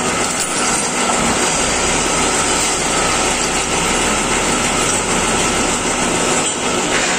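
Electro-pneumatic pipe bending machine running: a steady, unbroken mechanical noise with a thin steady tone through it.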